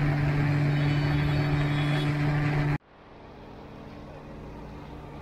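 Electric blender motor running steadily with a hum and whir, blending a banana milkshake; it cuts off abruptly about three seconds in, leaving faint street background noise.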